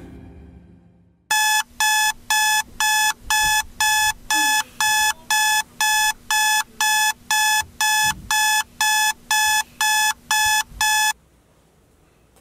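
Smartphone alarm beeping in a steady, evenly spaced pattern, about two high beeps a second, stopping abruptly as it is switched off.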